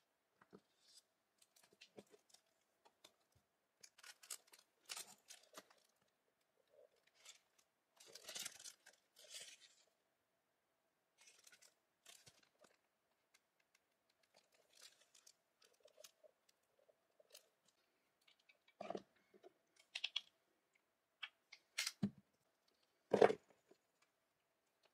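Paper and plastic packaging rustling and crinkling in short bursts as items are handled and unwrapped, with a few soft knocks of objects set down on a table near the end.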